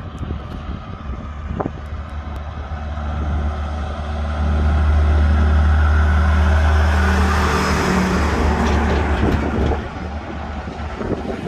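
Diesel cattle truck, a prime mover hauling a livestock crate trailer, approaching and passing at road speed. Its low engine drone builds and is loudest about five to eight seconds in, with a rush of tyre and wind noise as it goes by, then drops away.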